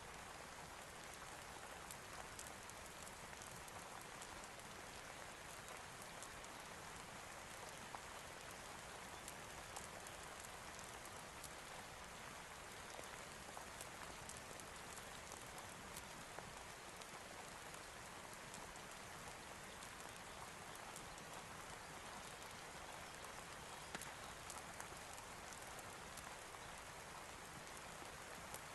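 Steady rain falling, a faint even hiss with scattered sharp ticks of drops.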